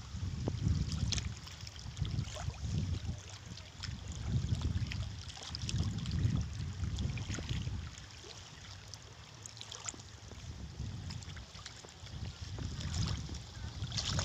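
Wind buffeting the microphone beside open river water: a low rumble that swells and fades in gusts, easing for a few seconds past the middle, with faint water lapping and trickling over it.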